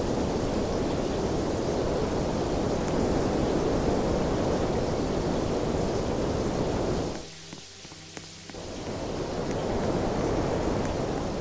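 Steady rushing air from a fan. About seven seconds in it drops away sharply for just over a second, leaving a faint low hum, then swells back up.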